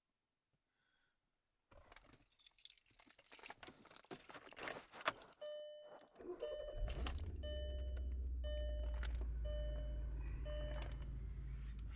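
Car keys jangle and click, then the car's warning chime beeps in a steady series about every half second. About seven seconds in, the engine starts and settles into a steady low idle under the chime.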